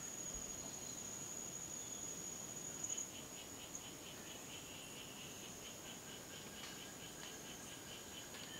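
Rainforest insect chorus: a steady, high-pitched insect drone, joined about three seconds in by a rapid, evenly spaced series of chirps.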